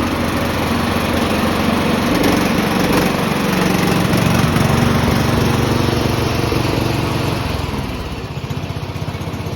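Riding lawn mower engine running steadily as the mower is driven, growing louder toward the middle and fading over the last couple of seconds.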